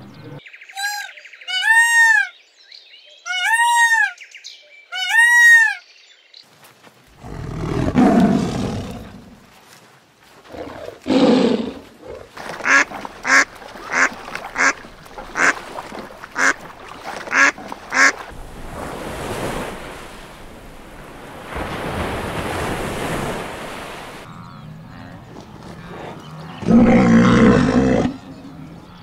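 Domestic white geese honking: a run of about nine short, sharp honks in the middle, roughly one a second. Before them come four short rising-and-falling pitched calls, and near the end a loud, brief burst of noise.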